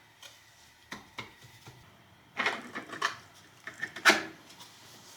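Gantry mount parts being handled and fitted onto a CNC mill: a scattered series of light clicks and knocks, with the loudest knock a little after four seconds in.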